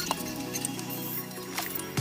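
Background music with steady held tones, with a couple of short clicks, one near the start and one near the end.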